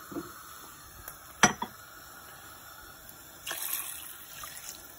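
Water poured from a glass into a steel pot of meat curry, splashing in, with a swell of pouring about three and a half seconds in. A sharp clink about a second and a half in is the loudest sound.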